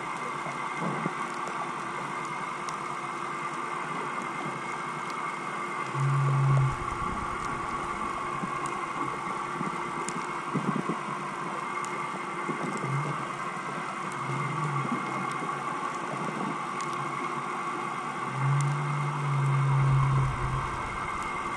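Underwater sound picked up by a camera on the seabed: a steady engine-like hum with a few held tones, likely a boat's motor carried through the water, with faint scattered clicks. Low booming pulses come about six seconds in and again for about two seconds near the end.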